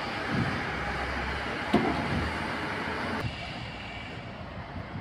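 Street traffic: a single-deck bus driving off along the road with its engine running, with a sharp knock nearly two seconds in. The noise drops noticeably a little over three seconds in.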